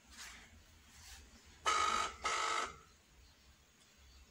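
Telephone ringback tone through a phone's speaker: one double ring, two short buzzing tones close together about two seconds in. It is the sound of an outgoing call ringing, not yet answered.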